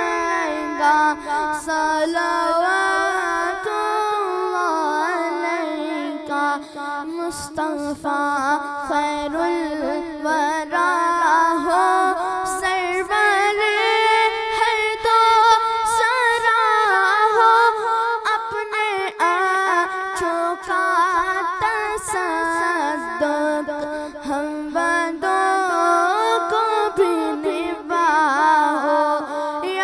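A boy singing solo and unaccompanied, a long melodic line with wavering, ornamented pitch.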